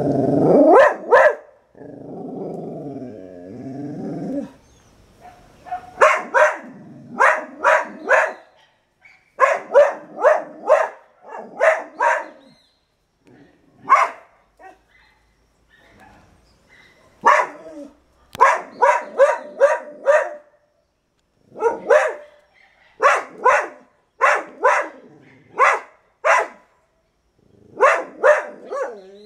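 Dog barking in quick runs of three or four sharp barks, repeated over and over with short gaps. It opens with a low, wavering growl in the first few seconds.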